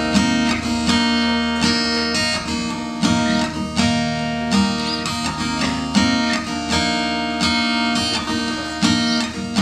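Acoustic guitar strumming chords in a steady rhythm, an instrumental break in a slow pop song with no singing.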